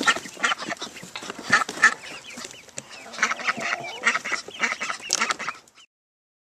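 A backyard flock of chickens and ducks calling together: a busy mix of short clucks and quacks. It cuts off abruptly near the end.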